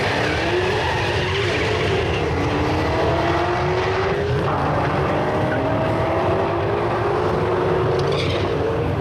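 Ford Mustang drag car launching hard with its rear tyres spinning, then its engine revving up and dropping back at each gearshift as it accelerates away down the strip.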